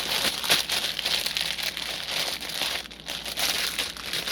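Plastic packaging crinkling and rustling as it is handled, in uneven bursts with a short lull about three seconds in.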